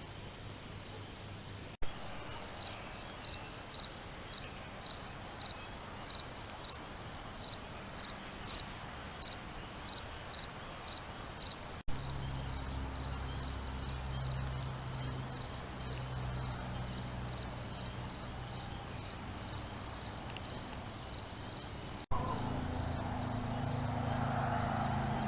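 An insect, cricket-like, chirping in an even rhythm of about two short high chirps a second, louder in the first half and fainter later, with a low steady hum underneath in the second half.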